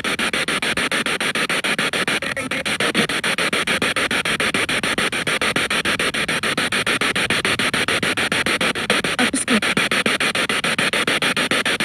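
Spirit box sweeping through radio stations, played through a portable speaker: rapid, evenly chopped bursts of static, with a brief fragment of radio sound about nine seconds in.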